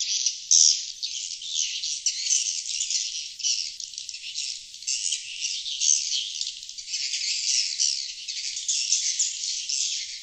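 Sriti (glossy swiftlet) calling sound played as a lure for wild swiftlets: a dense, continuous high twittering chatter of rapid chirps that swells and fades every second or so.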